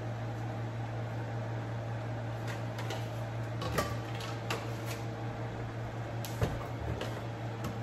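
Steady low hum of a kitchen fan, with a few sharp knocks a few seconds in as an upper kitchen cabinet is opened and a plastic jug of vegetable oil is handled.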